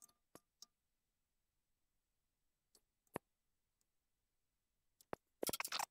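Mostly quiet, with a few light, sharp clicks scattered through it as hands handle the stopped milling machine's boring head. Near the end a louder, continuous noise from the mill starts up.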